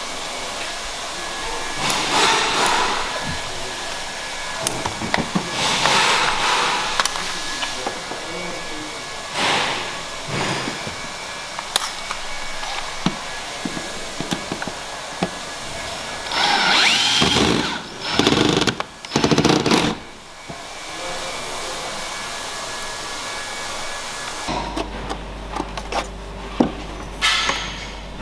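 Cordless screwdriver running in several short bursts, driving out the screws that hold a car's plastic wheel-arch liner and trim, with clicks and knocks from handling the plastic parts in between.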